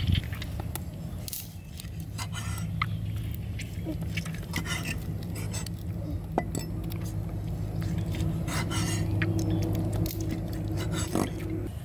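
A cleaver slicing through stuffed pork intestine rolls, its blade knocking and clinking on the board in irregular strokes, over a steady low hum.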